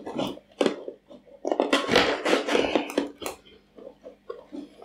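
Fingers pressing and scraping soil substrate inside a glass jar: a string of short, irregular rustles and scrapes, with a longer, louder stretch of scraping in the middle.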